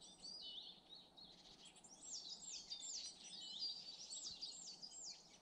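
Several small woodland songbirds singing at once: faint, high, thin whistled notes that slide down in pitch, repeated over and over.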